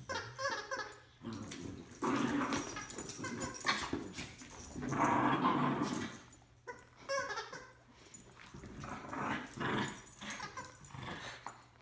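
Two small dogs growling in rough play as they wrestle and tug at a toy, in irregular bursts, loudest about five seconds in.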